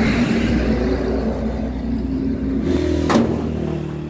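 A motor vehicle engine running steadily, with a sharp knock about three seconds in.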